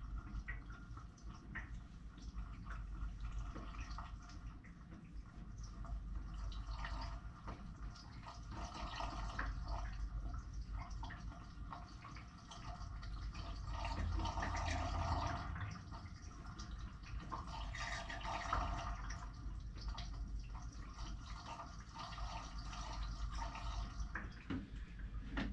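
About half a gallon of liquid bleach being poured into a water heater tank through its anode rod opening, a continuous trickling and splashing that swells around the middle, over a low steady hum.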